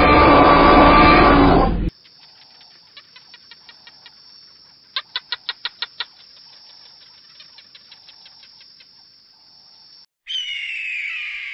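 A loud dinosaur roar cuts off about two seconds in. Then faint runs of quick chirping clicks, with a louder burst of about eight rapid chirps midway. Near the end comes a bald eagle's high call, a squeal falling in pitch.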